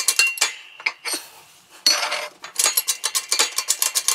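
Hydraulic jack of a shop press being run down to compress a transmission clutch drum's spring retainer: a rapid, even clicking with a short lull about a second in, starting again sharply just before halfway.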